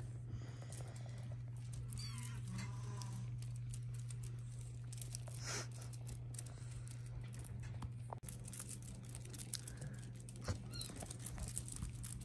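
British Shorthair kittens playing on a blanket: light scratching and rustling of paws and a feather wand toy, with a brief kitten mew about two seconds in, over a steady low hum.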